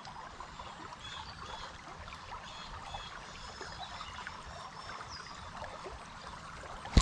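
Creek water running steadily, with a few faint, short high chirps over it.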